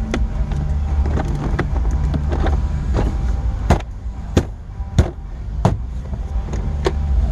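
Sharp clicks and knocks from hand tools and plastic trim as screws go back into the glove box, over a steady low rumble. In the middle, four loud clicks come about two-thirds of a second apart.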